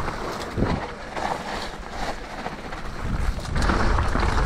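Wind rushing over the microphone and tyres rolling over dirt as a mountain bike rides down a trail, with scattered rattles and clicks from the bike. The rush grows louder about three and a half seconds in.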